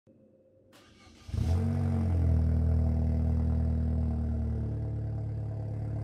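Opel Corsa OPC's 1.6-litre turbocharged four-cylinder starting up through a straight-piped exhaust with the rear muffler deleted. A brief crank about a second in, then the engine catches abruptly and runs at a raised idle, and it settles to a lower, steady idle near the end.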